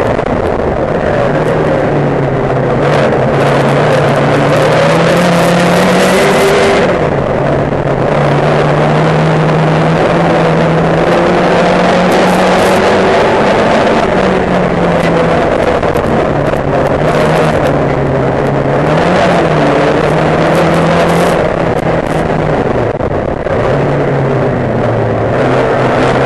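Race car's engine heard from onboard, running hard at racing speed; its note climbs and drops several times as the driver accelerates and lifts for the corners.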